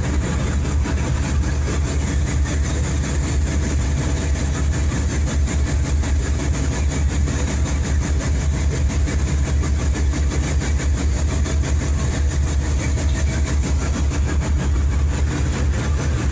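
A boat's engine running steadily as a low drone, with the rush of churning water along the hull.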